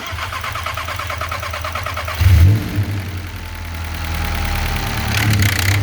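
Freshly rebuilt VW DLB engine's first start: the starter cranks for about two seconds, then the engine catches with a loud flare and runs, rising in level again near the end.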